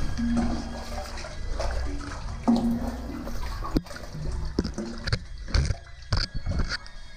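Water splashing and sloshing as a caver crawls and wades through a stream-floored cave passage, with irregular knocks and scrapes of body and gear against the rock.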